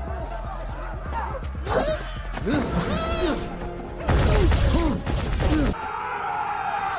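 Film battle soundtrack: music mixed with impacts, shattering and crashing effects, with a loud deep rumbling surge about four seconds in.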